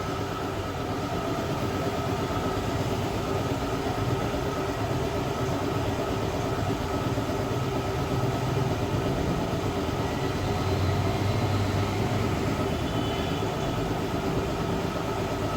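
Hot-air plastic welder running, a steady whir and hiss from its blower with a low hum underneath.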